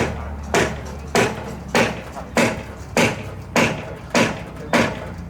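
Steady, even hammer blows, about ten strikes landing roughly every 0.6 seconds, over a continuous low hum.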